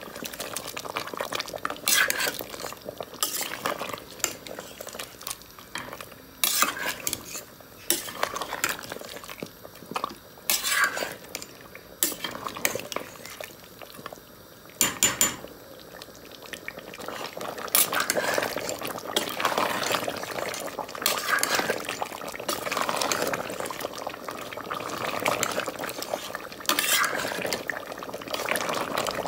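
A metal spoon scrapes and clinks against a metal cooking pot while stirring pieces of mutton korma in thick gravy, in irregular strokes.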